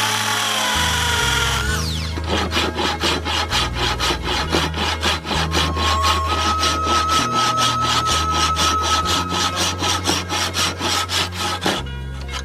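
Hand saw cutting wood with fast, even back-and-forth strokes, about four a second, after a short whirring noise that falls in pitch at the start. Background music plays underneath.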